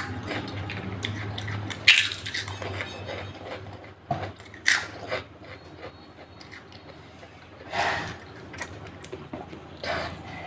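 Close-miked eating of chicken curry with rice: chewing, with a few short, sharp plate-and-food noises about two, five and eight seconds in, over a steady low hum.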